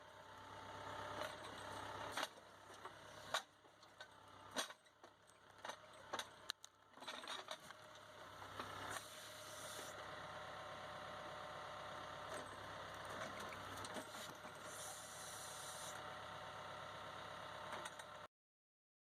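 Mahindra 2638 tractor's diesel engine running faintly, with scattered sharp clinks and knocks over the first several seconds; the sound cuts off suddenly near the end.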